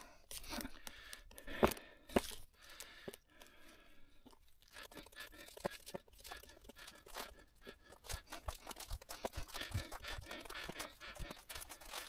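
Wire antenna being pulled out of brush and wound onto a small cutting board: faint, irregular rustling and crackling, with two sharper knocks about two seconds in.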